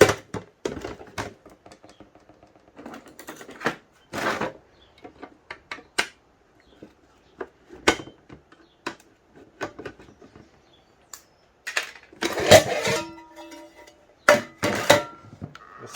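Irregular clicks, knocks and rattles of a metal power box and hand tools being handled as it is opened up, with a few louder scraping bursts.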